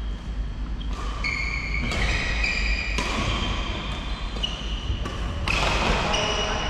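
Badminton play echoing in a large sports hall: several sharp racket strikes on the shuttlecock, about a second apart, over high-pitched squeaks of court shoes on the wooden floor.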